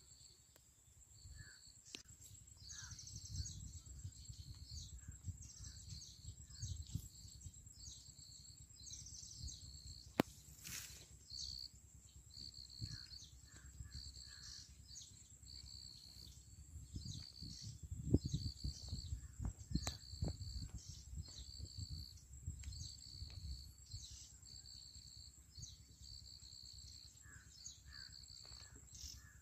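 Riverbank outdoor ambience: a steady high-pitched insect whine with short high calls repeating about once a second, over a low wind rumble on the microphone, with a few faint clicks.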